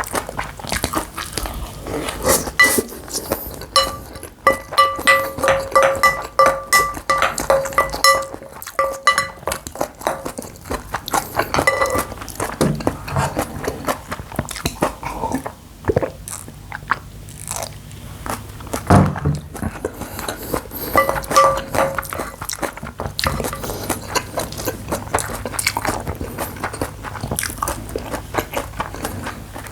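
Bibimbap of rice and mixed side-dish vegetables being bitten, chewed and crunched, with many short clicks of a spoon against the bowl and, twice, a steady ringing tone.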